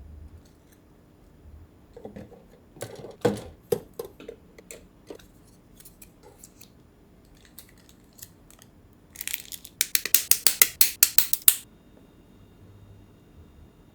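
Plastic model kit parts being worked by hand: a scatter of light clicks and snaps, then a quick run of about a dozen sharp clicks or snips near the end.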